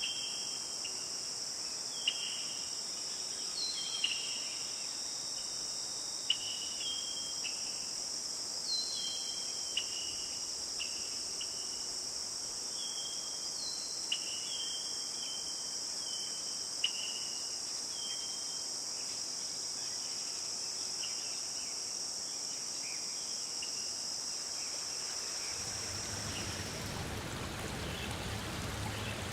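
A steady, high-pitched insect chorus with short, repeated chirping calls over it. Near the end it gives way to the even rush of running water.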